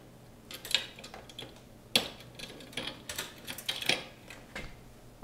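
Dishwasher door-tensioning cable being unhooked from the pegs on the machine's metal frame and pulled free: a series of light metallic clicks and rattles, with a few sharper ticks, the loudest about two seconds in.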